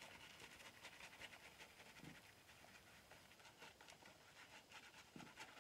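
Faint crackling scrape of a Shlyuz Bublos double-edge safety razor cutting through lathered stubble, a dense run of small clicks.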